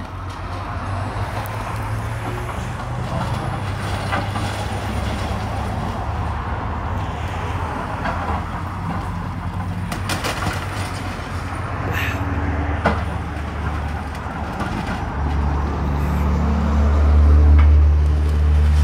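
Excavator's diesel engine running steadily as it tears down a building, with a few sharp cracks of breaking debris around the middle. The engine grows louder and deeper near the end.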